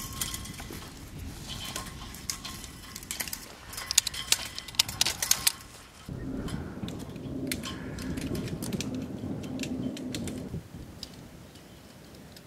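A rapid, irregular series of sharp clicks and snaps from hand tools as grapevine canes are bent and tied to the trellis wires. About six seconds in, a low steady hum takes over for several seconds, then fades.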